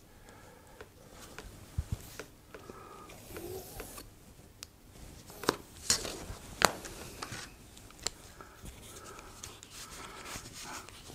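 Scissors snipping through the road's camber piece, with a scatter of sharp clicks and small handling sounds; the loudest snips come just past the middle.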